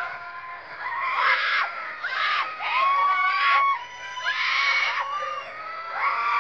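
Audience screaming and cheering in repeated loud bursts, with long high held cries between them.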